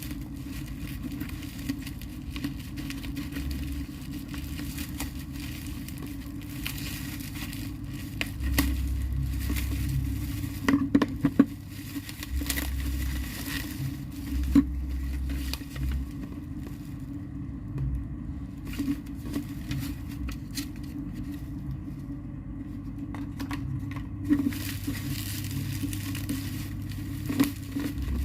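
Product packaging being handled and opened: crinkling and tearing with scattered sharp clicks and taps.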